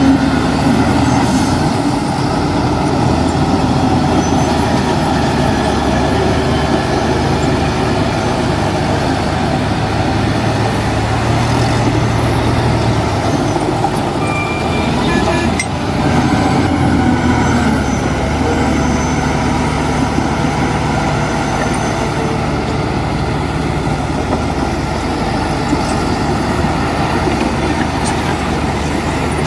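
Heavy diesel earthmoving machinery running continuously, with the engine note rising and falling a little.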